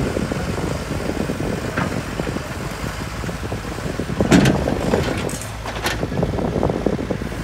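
Small excavator's diesel engine running under load, with several sharp knocks from about four seconds in, the first the loudest, as the bucket knocks against the steel barge.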